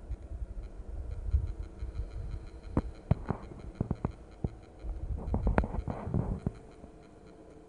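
Low, fluttering wind rumble on the microphone, with scattered sharp clicks and crackles in two clusters, about three seconds in and again about five to six and a half seconds in.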